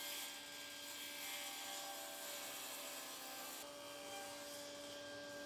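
Table saw running and ripping a board, heard faintly as a steady hum with a high hiss. The hum jumps to a higher pitch a little past halfway.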